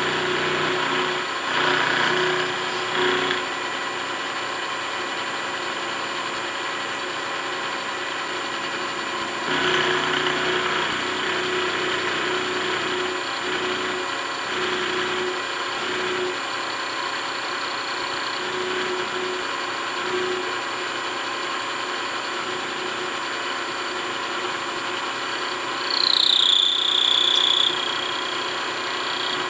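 Vertical milling machine running with an end mill cutting an aluminium part, a steady motor hum with rougher stretches of cutting noise near the start and again about ten seconds in. Near the end a brief high-pitched whine from the cut is the loudest sound.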